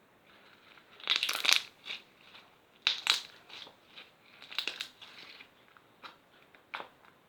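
Crinkling, crunching handling noises that come in three main bursts, the loudest about a second in, with scattered short clicks in between.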